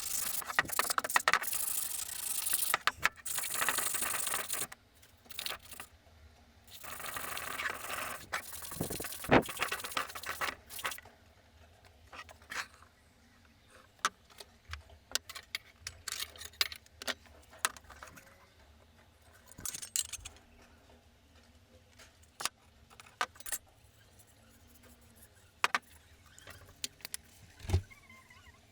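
Hand restoration work on an old wooden grater: two bouts of rubbing or scraping, as in sanding, in the first ten seconds or so. After that come scattered light clicks, clinks and knocks as parts and tools are handled.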